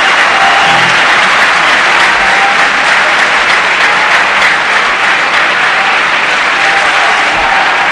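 Large live concert audience applauding, loud and steady, with a few faint instrument notes barely showing through.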